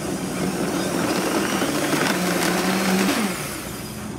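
Vitamix blender motor running loudly, puréeing soft simmered apricots and apple juice into a thick syrup; about three seconds in the motor winds down with a falling pitch as it is switched off.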